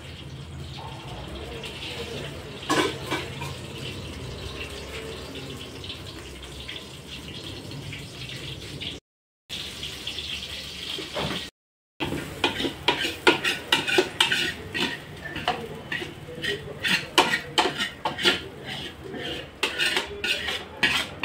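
Metal ladle scraping and knocking against a large metal cooking vessel as cooked food is scraped out into a pot. The first part holds a steady low hum with an occasional clatter; after two short breaks comes a quick run of scrapes and clinks.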